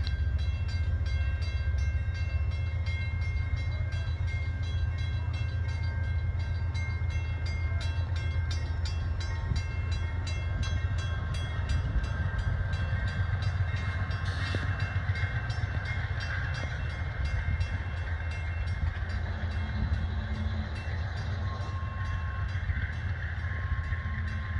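Amtrak passenger train of Amfleet coaches with a cab car rolling past over a grade crossing, a steady low rumble of wheels on rail. Over it a crossing bell rings rapidly and evenly throughout.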